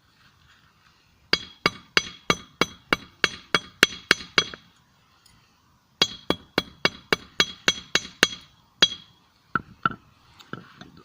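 Hammer striking a steel screw on a small 25 lb anvil, in two runs of about three blows a second, each blow ringing with a high metallic note, then two lighter taps near the end. The screw is being forged into a blade, with the kinks hammered out.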